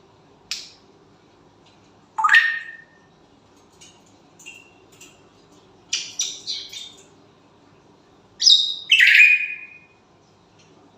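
Pet parrot giving a series of short squawks and chirps a few seconds apart, the loudest two close together near the end.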